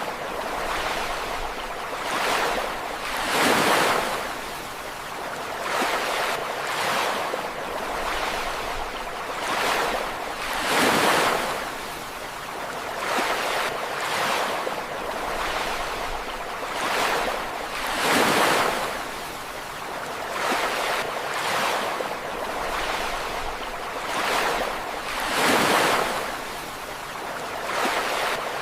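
Ocean waves breaking and washing onto the shore in repeated surges, with a bigger break about every seven seconds and smaller ones in between.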